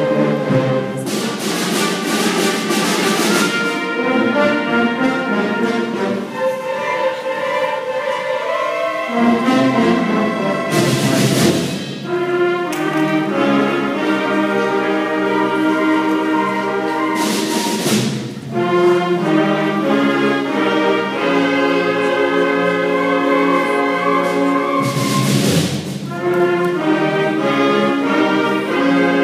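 Student concert band playing a piece of held brass-led chords, with loud crashes breaking in four times across it.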